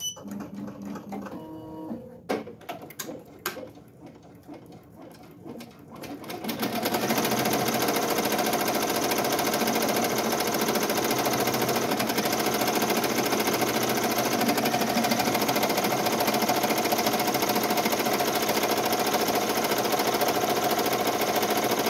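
Ricoma EM1010 ten-needle embroidery machine starting up. There are a few clicks and short motor moves, then about six and a half seconds in it settles into steady, rapid stitching at its fast speed setting.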